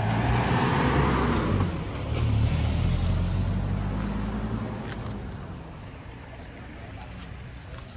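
A motor vehicle driving past close by, its engine hum loudest in the first few seconds, then fading away after about five seconds.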